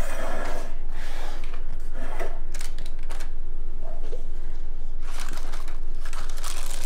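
Parchment-paper tulip muffin liners rustling and crinkling in short bouts as they are handled, and one is pressed down into a metal muffin tin with a cup. The bouts come about half a second in, around two seconds in, and again from about five seconds on.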